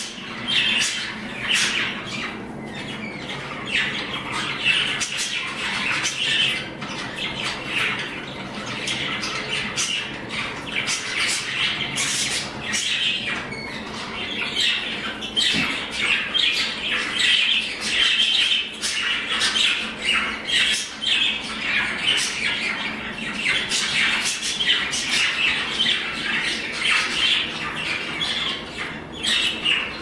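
Several young budgerigars chattering without a break, a busy mix of quick warbling chirps and sharp clicks.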